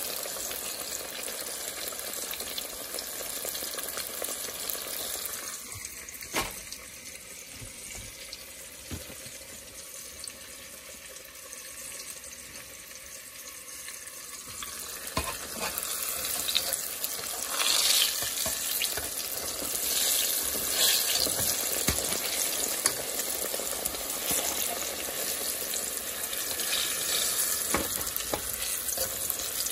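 Sweet potato fries deep-frying in hot vegetable oil: a steady sizzle that grows louder about halfway through, with a few sharp clicks scattered through it.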